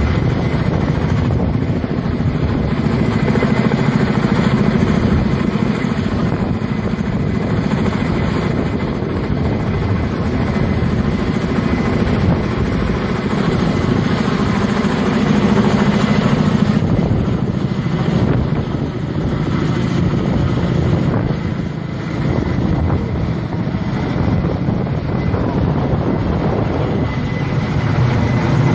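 Helicopter rotors and turbine engines running steadily as the helicopter hovers overhead lifting a steel lattice transmission tower on a long sling line.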